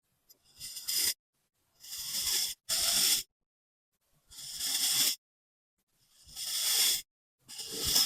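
A knife slicing through kinetic sand: about six short noisy cutting strokes, each swelling and then stopping sharply, with silence between them.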